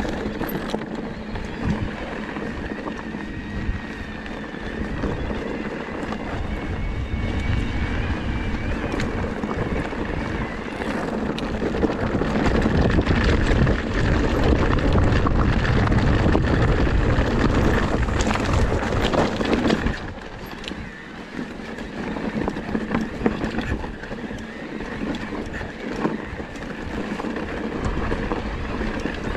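Wind buffeting the microphone over the rattle and tyre noise of an electric enduro mountain bike riding down rocky singletrack. It is loudest for several seconds in the middle, and a faint high whine can be heard in the first third.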